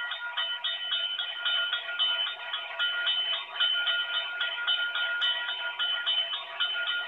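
Electronic model-railroad grade crossing bell (ITT HQ300-1 sound module) ringing in a steady run of about four metallic dings a second. It keeps ringing because the train stopped on a detection sensor, and the Grade Crossing Pro controller is waiting out its long timeout before cutting the bell.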